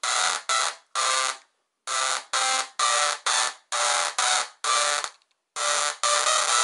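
Small DRSSTC Tesla coil firing sparks from its breakout wire: a harsh, pitched electric buzz in short bursts of a fraction of a second each, about two a second, with a brief pause about five seconds in.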